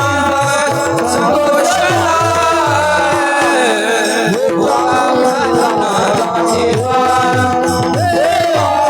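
Devotional kirtan music: a voice singing a gliding melodic line over a steady held drone, with regular mridang drum strokes keeping the beat.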